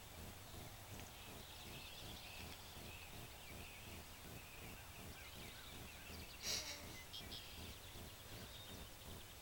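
Faint outdoor ambience with distant birds chirping, and a brief rustle or knock about six and a half seconds in.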